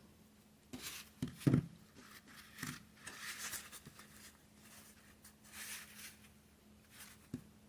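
Faint rustling and a few light knocks as craft materials are handled: the twine-tied bundle of artificial greenery and the wreath being turned over.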